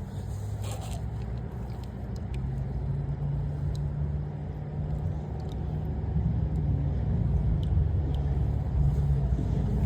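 Low, steady hum of a motor vehicle engine, growing gradually louder, with a few faint small clicks over it.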